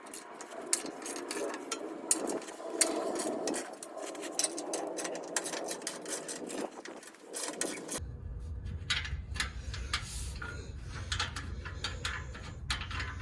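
Ratchet wrench clicking in quick runs of ticks as the 15mm skid-plate bolts are turned out, with a steady low hum coming in about eight seconds in.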